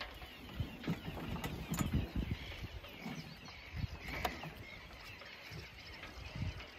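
Knocks, thuds and rustling of a mooring rope being hauled in and coiled aboard a small sailboat, with a few sharp clicks in the first two seconds. Birds chirp in the background.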